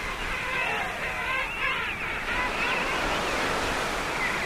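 Surf washing steadily, with many king penguins calling over it, their overlapping calls rising and falling in pitch.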